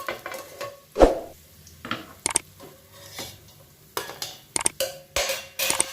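A spoon scraping and tapping against the pan as fried cashews and raisins are scooped out of hot ghee: a run of separate scrapes and clinks, the loudest about a second in.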